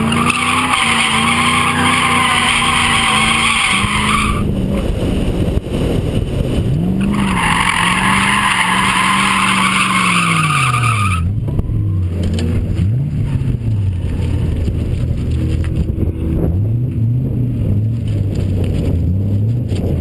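Lexus SC400's V8 revving up and down through a drift, heard from inside the cabin, with two long tyre squeals of about four seconds each in the first half. After the second squeal the tyres go quiet and the engine runs on at lower, varying revs.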